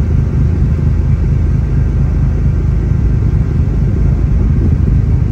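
Steady low rumble of the Starlite Pioneer passenger ferry underway, heard from its open deck as it speeds up, with its engines' drone and the flicker of wind on the microphone.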